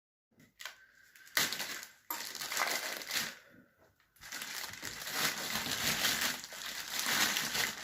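Plastic packaging wrap crackling and crinkling as it is torn open and pulled off a speaker, in loud irregular bursts with two short lulls.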